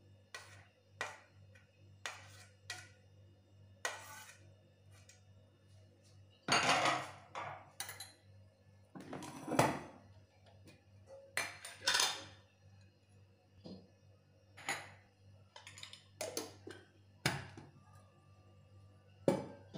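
A steel spoon clinking and scraping against a small glass bowl and a plate as chopped garlic is knocked into the bowl, along with knocks of a steel oil container being handled. There are many short sharp clinks, with a few longer scraping sounds around the middle.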